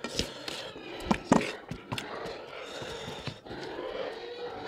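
A person eating buffalo meat: close-up chewing and mouth sounds, with a few sharp clicks in the first two seconds.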